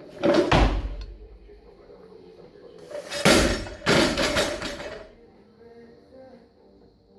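Snatch with a bumper-plate barbell: a loud thud as the lifter's feet land in the catch, then about three seconds in the barbell is dropped onto the rubber gym floor with a heavy bang and bounces with a second bang a little under a second later.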